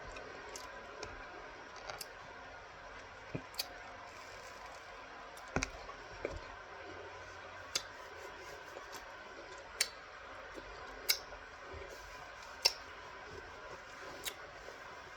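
Raw cornstarch being bitten and chewed: short, sharp crunching clicks at uneven intervals, about one every second or two.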